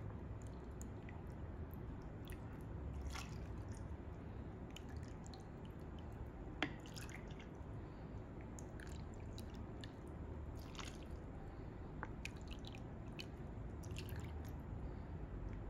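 Filtered water poured from a pitcher into a plastic measuring cup and from the cup onto soybeans in ceramic pots: faint trickling and drips with light scattered clicks and knocks of plastic on ceramic, and one sharp click about six and a half seconds in.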